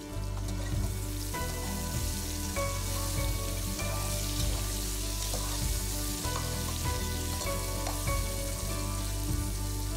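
Cubed eggplant sizzling as it fries in a pot, stirred and turned with a spatula, with steady background music underneath.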